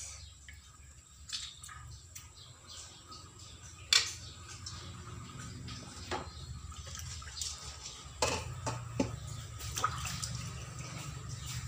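Hands handling fish pieces in a vinegar-and-salt marinade in a stainless steel bowl, making small wet sounds and scattered light clicks. There is one sharp knock about four seconds in, and a low steady hum underneath.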